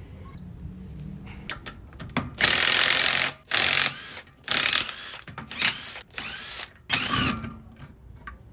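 A wrench ratcheting on the front wheel's lug bolts in about six loud bursts, each half a second to a second long, with scattered clicks before them.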